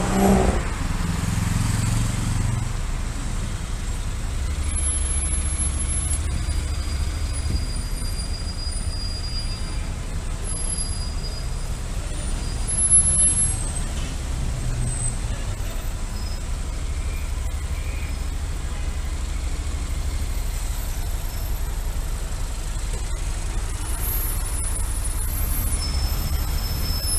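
Motorcycle riding slowly through heavy queued road traffic, with a steady low engine rumble and road noise. There is a short louder sound about 13 seconds in.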